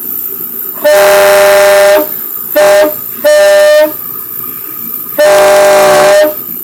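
Homemade reed-type PVC air horns blowing four loud, steady-pitched blasts: a long one, a short one, a half-second one and another long one, the horns freshly fitted with a new reed and resealed.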